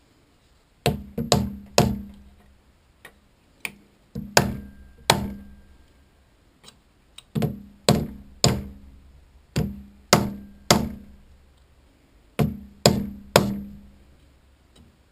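Hammer blows on metal, about seventeen sharp strikes in groups of two or three, each ringing briefly.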